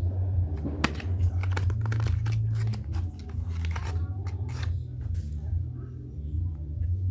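Packaging being torn open and crinkled by hand: a quick run of sharp crackles and tears lasting about four seconds, then only scattered rustles, over a steady low hum.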